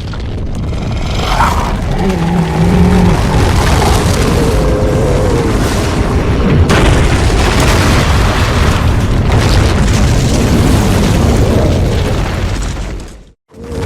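Kaiju film sound effect from the Millennium-era Gamera films: a long, loud rumbling blast with a deep boom. A wavering pitched cry runs through it from about two to six seconds in, and the sound drops away just before the end.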